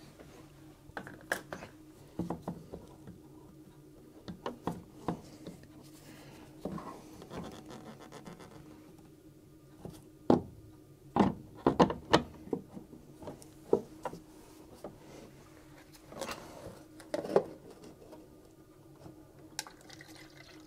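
Brittle plastic coolant reservoir being handled and worked out of its mounting: scattered clicks, scrapes and knocks of hard plastic, with a run of sharper clacks about halfway through. One clack is a broken-off piece of the tank's plastic dropping inside it.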